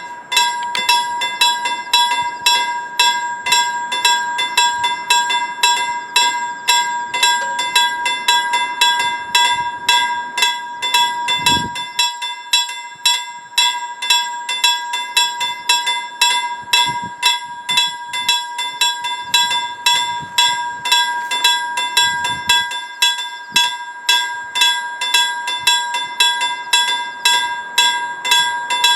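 Level-crossing warning bell ringing in a steady, even rhythm of about two strikes a second, starting abruptly: the crossing's warning for an approaching train.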